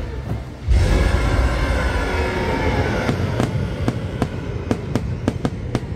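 Aerial fireworks going off: a sudden heavy boom less than a second in, then a deep rumble of bursting shells. From about halfway there is a rapid string of sharp cracks and pops.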